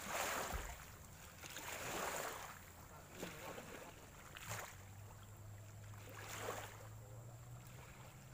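Faint outdoor riverbank ambience of wind and river water at the bank, swelling into a soft whoosh about every two seconds.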